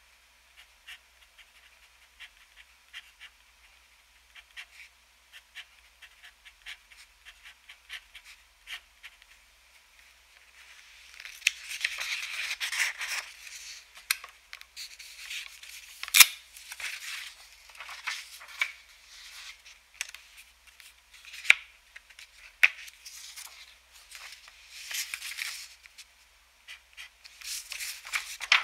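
A TWSBI ECO fountain pen with an extra-fine nib scratching across paper in short strokes. It is faint at first and louder from about eleven seconds in, with rubbing on the page and a few sharp clicks. Near the end the paper rustles as the written sheet is moved off the clipboard.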